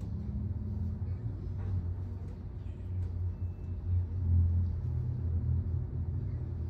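A low, steady rumble that swells briefly about four seconds in.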